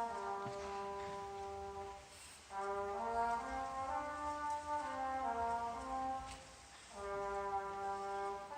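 Elementary school marching band brass playing held chords in three short phrases, with a moving line stepping down inside each and a brief break between phrases.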